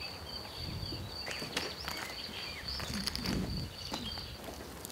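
Outdoor summer ambience: an insect's steady, high-pitched trill, which stops about four seconds in, with a few faint chirps and scattered light clicks and rustles.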